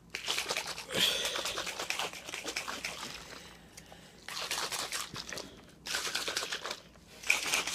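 Clear plastic shaker cup of G Fuel drink being shaken hard, a dense rattling and crackling in about four bursts with short pauses between them, as the powder is mixed in.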